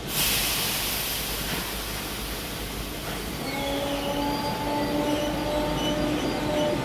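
Merseyrail Class 508 electric train at an underground platform: a sudden loud hiss of air that dies away over about a second, then from about three seconds in a steady electric hum of several tones as it gets ready to pull away.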